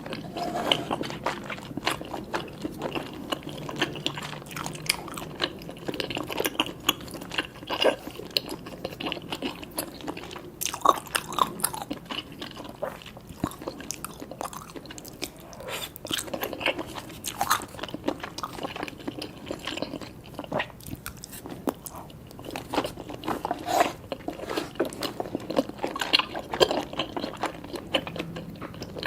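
Close-miked eating: chewing and biting Samyang spicy cheese noodles with tobiko, with many small, crisp clicks and crunches.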